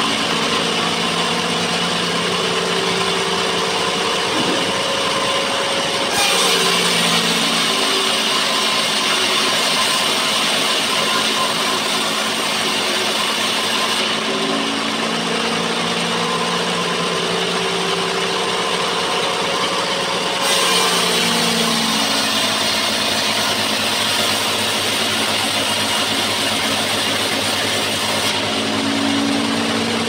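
Homemade band sawmill cutting a sengon (albasia) beam: a steady machine drone with the hiss of the band blade in the wood. The noise grows brighter and louder at about six seconds and again at about twenty seconds.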